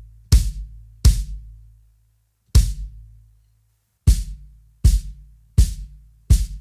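Bass drum of a 22x16 Pearl Masters Maple kit kicked with a thick face mask taped where the beater hits, which takes away most of the beater's click for a soft kick sound. Seven single kicks, each with a low ringing tail: two, a pause, one more, then four in an even run.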